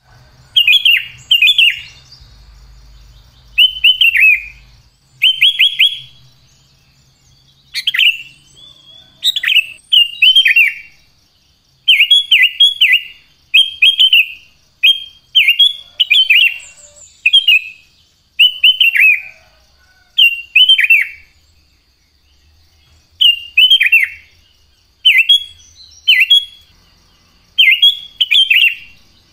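Sooty-headed bulbul singing: short, clear phrases of two to four notes that fall in pitch, repeated every second or two with brief pauses between, over a faint steady high whine.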